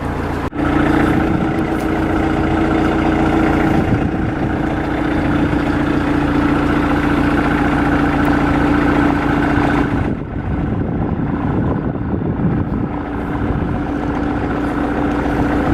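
An engine running steadily, a continuous hum with no change in speed.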